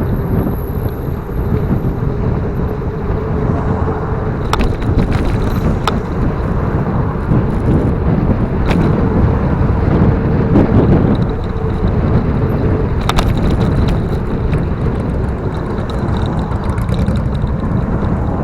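Wind buffeting the microphone of a camera carried on a moving bicycle, with rolling noise and a few sharp clicks or rattles.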